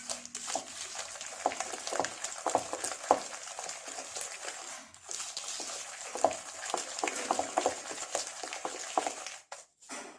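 Butter and sugar creamed with egg yolks, stirred by hand in a bowl: continuous irregular scraping with sharp clicks of the utensil against the bowl, stopping shortly before the end.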